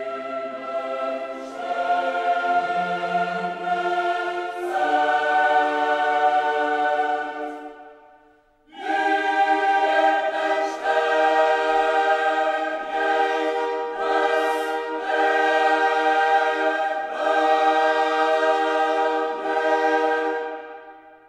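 Choral music with voices holding long sustained chords. It dips to near silence about eight seconds in, comes straight back, and fades out near the end.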